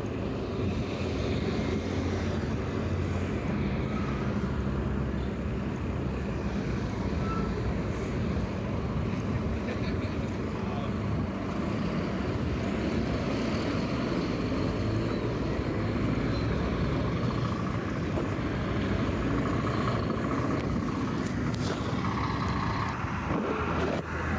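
Road traffic: heavy trucks and cars running and passing, a steady mix of engine rumble and tyre noise.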